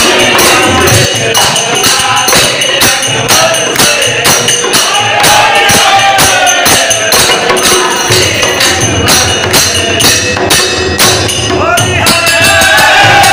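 Men singing a Holi folk song together to a dholak hand drum, with a steady metallic jingling beat running through it.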